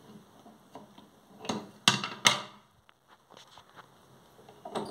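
Adjustable wrench knocking against a bathroom mixer tap's brass valve headpiece and being set down on the ceramic sink: three sharp knocks close together about two seconds in, with fainter clicks around them.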